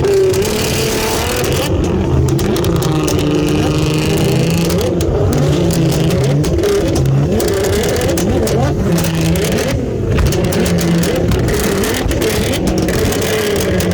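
Nissan GT-R R35's twin-turbo 3.8-litre V6 running and revving, its note stepping up and down in pitch.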